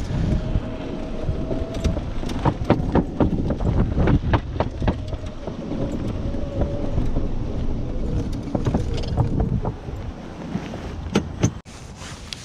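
Golf cart driving over grass: a steady motor whine that drops lower in pitch in the second half, over a low rumble, with the cart's body knocking and rattling over bumps. It stops abruptly near the end.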